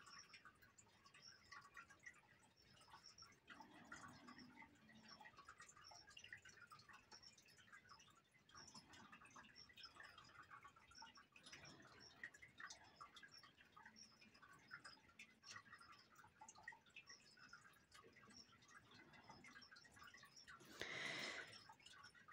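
Near silence with faint, irregular scratching of a colored pencil on paper, and a brief louder rustle near the end.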